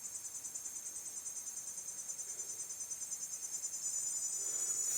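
Insects chirring in a steady, high, rapidly pulsing drone that grows a little louder toward the end.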